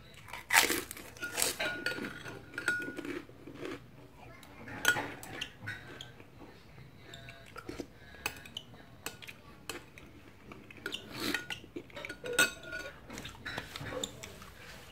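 A spoon clinking and scraping against a bowl while cilok dumplings in broth are eaten. The knocks are irregular, some with a short ringing note, the loudest about half a second in, about five seconds in and near twelve seconds.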